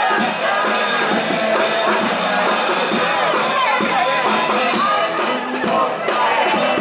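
Loud upbeat pop music with a drum kit's drums and cymbals, and a street crowd singing along and shouting over it.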